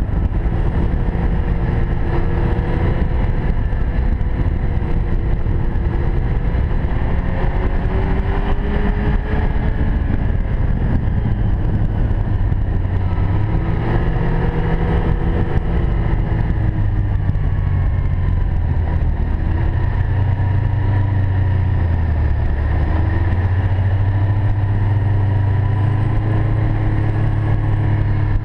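2013 Ski-Doo Expedition 1200 4-TEC snowmobile's four-stroke three-cylinder engine running steadily under way, heard from the rider's seat, its pitch drifting up and down with the throttle. From about halfway a deeper, stronger engine drone sets in.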